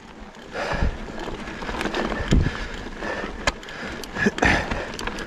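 Mountain bike rolling over a rough, rutted dirt trail: tyre noise and chassis rattle, with several sharp knocks as the bike hits bumps, the loudest about two and a half and four and a half seconds in.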